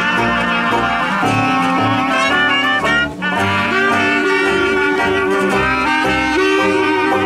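Band music: wind instruments carry a melody over a steady, regular bass beat, in a jazz style.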